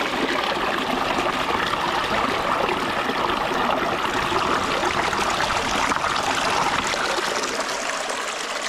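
Small hill stream splashing steadily over rocks, with a plastic water bottle held in the flow to fill it; the rushing eases a little near the end.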